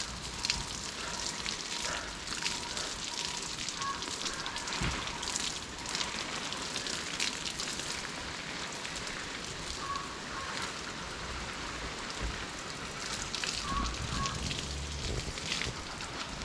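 Water spraying onto leaves and soil while garden plants are watered: a steady hiss with many small crackles.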